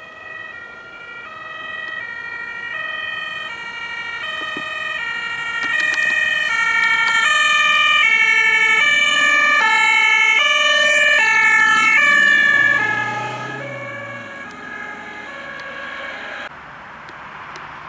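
Emergency car's two-tone siren alternating evenly between a high and a low note. It grows louder as the car approaches, with tyre and engine noise as it passes, then drops in pitch and fades as the car drives away. The sound changes abruptly near the end.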